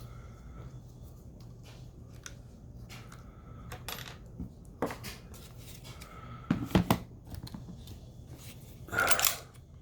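Sharp clicks and knocks from a pistol and a small rail-mounted laser sight being handled, with a quick cluster of loud clicks about two-thirds of the way through and a brief scrape near the end.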